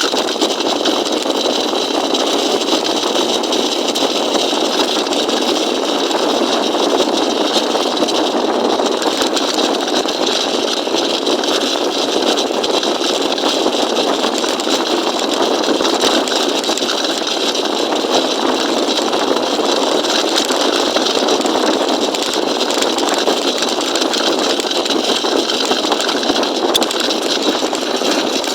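Small engine of a motorized bicycle running steadily at an even speed, loud and unchanging throughout.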